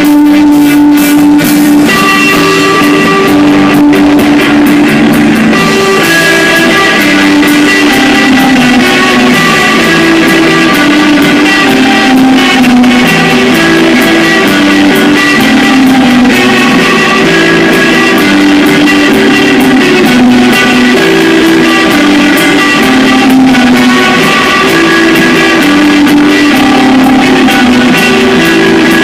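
Rock band playing live and loud: electric guitar carrying a melody of held notes over bass and drums.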